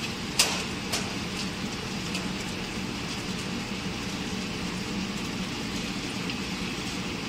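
Stainless-steel caramel popcorn mixing kettle running, a steady mechanical hum and rumble from its stirring motor. Two sharp metallic clicks come about half a second and a second in.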